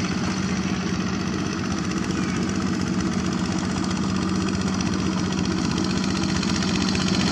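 Single-cylinder Kubota diesel engine of a two-wheel walking tractor running steadily while the tractor works, with cage wheels, through paddy-field mud.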